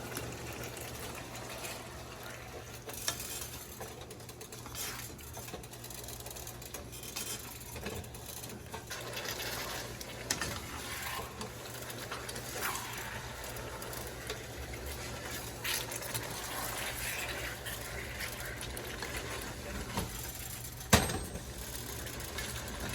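Chicken pieces being stirred in a pan of simmering gravy: a steady bubbling hiss with scattered scrapes and knocks of the spoon against the pan, over a low steady hum, and a sharper click near the end.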